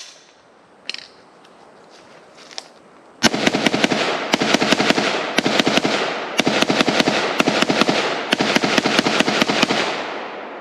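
FN 15 Tactical III rifle firing 5.56 NATO green-tip rounds in a rapid semi-automatic string, several shots a second, starting about three seconds in after a couple of faint clicks.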